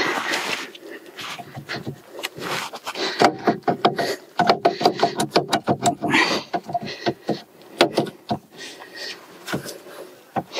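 Metal clicking, knocking and rattling as a seized, dirty front brake caliper is worked loose and wiggled off its disc by hand. There is a fast run of sharp clicks in the middle.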